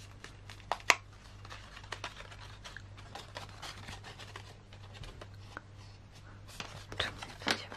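Heavy paper crackling and rustling as a folded paper star point is pressed firmly along its creases and fanned open by hand: a string of small clicks, with a sharper one about a second in and a few louder ones near the end, over a faint steady low hum.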